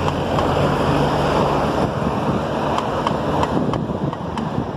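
Wind rushing over the microphone while riding, a steady noise, with a few light clicks in the second half.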